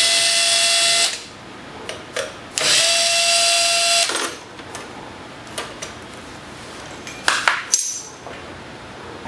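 Cordless drill-driver running twice in bursts of about a second and a half, each with a steady whine, likely driving screws on the copier's option-slot cover. A few sharp clicks follow near the end.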